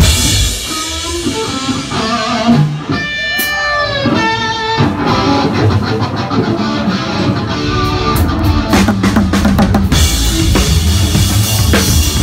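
Live rock band music. The drum kit drops back and a guitar plays a passage with bending notes, then the full kit comes back in about ten seconds in.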